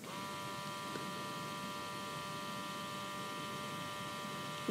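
Steady hum of a small electric motor with a whine of several tones over it, cutting in suddenly at the start.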